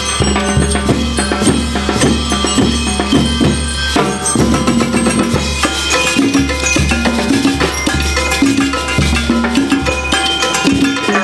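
School rhythm band playing a lively, percussion-heavy piece: drum kit, congas, snare and bass drums with a shaker keep a busy beat under a held brass melody.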